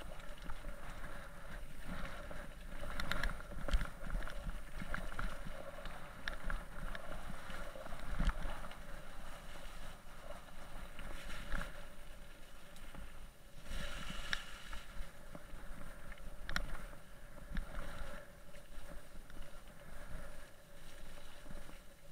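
Mountain bike riding over a wet, muddy, stony track: steady tyre noise on mud and gravel, with irregular knocks and rattles as it hits bumps.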